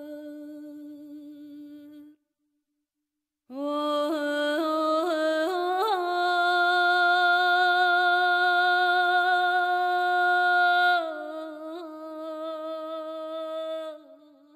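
A solo voice singing a Persian song without accompaniment, with no words: a long held note fades out, and after a short pause the voice returns with a rising, ornamented run of quick turns. It then holds one long note, steps a little lower about two-thirds of the way in, and fades away near the end.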